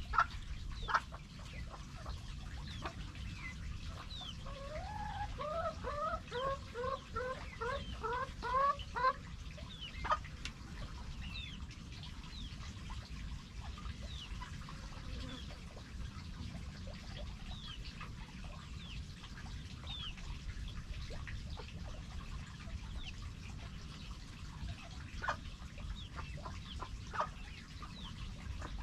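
Chickens clucking: one chicken gives a quick run of about ten clucks between about five and nine seconds in, with scattered softer clucks and calls before and after it, over a steady low background rumble.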